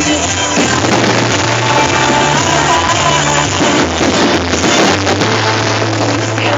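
Background rock music, an instrumental passage without singing, with a steady bass line and drums.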